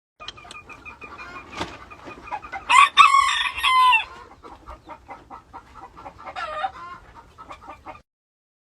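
Rooster crowing loudly about three seconds in, over steady clucking from chickens, with a second, shorter call near the seven-second mark. The sound cuts off suddenly near the end.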